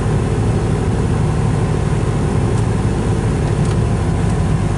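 Steady low mechanical rumble of a vehicle running, without change.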